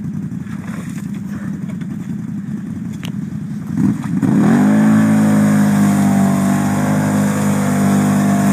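Can-Am Outlander 1000's V-twin through a Two Brothers aftermarket exhaust, idling with a low rumble, then revved up about four seconds in and held at high revs as the bogged quad's wheels spin in deep mud.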